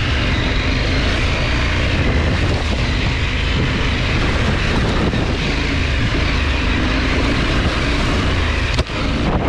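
KTM 890 Adventure R motorcycle's parallel-twin engine running under way, mixed with wind and road noise while riding. The sound drops out for an instant near the end.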